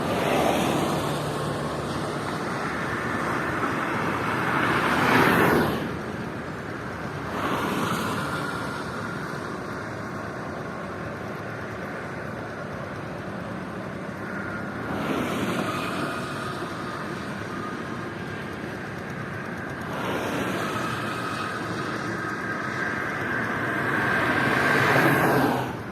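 Highway traffic passing at speed, one vehicle after another: about six swells of tyre and engine noise, each building and then dropping away quickly. The loudest passes come about five seconds in and near the end.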